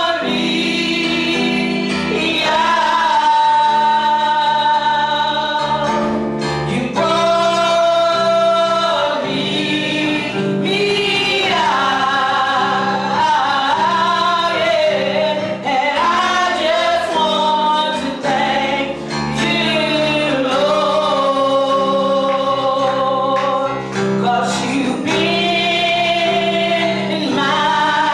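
Gospel music: a choir singing long held notes that slide from pitch to pitch.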